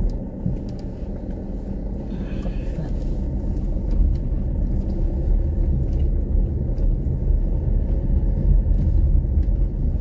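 Car driving: steady low engine and road rumble, growing louder about four seconds in.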